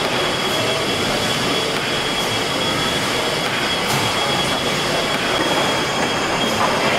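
Victoria and Alexandra twin tandem compound horizontal steam mill engine running steadily: a continuous mechanical rumble and hiss from its turning rope flywheel, piston rods and crossheads, with a thin steady high tone over it.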